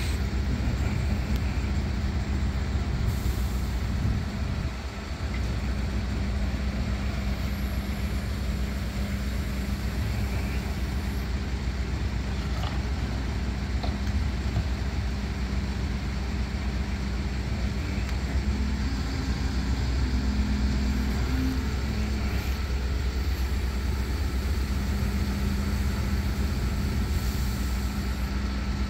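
Diesel engine of a truck-mounted mobile crane running steadily while it lifts a boat, revving up briefly about two-thirds of the way through.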